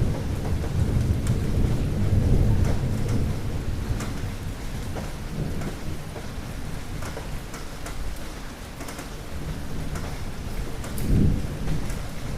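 Steady rain with scattered drop ticks, under low rolling thunder that is heaviest in the first few seconds, fades, and swells again briefly near the end.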